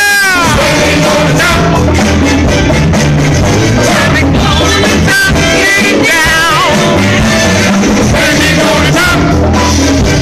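Live funk band with several singers: voices sing with wide vibrato and slide down in pitch near the start and again about six seconds in, over sustained bass notes and drums.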